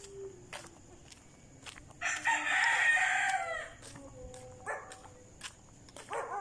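A rooster crowing once, about two seconds in, lasting about a second and a half.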